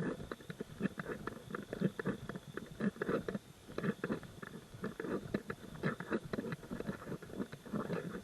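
A hiker's footsteps crunching on a gravel trail, in a steady irregular run of short crunches.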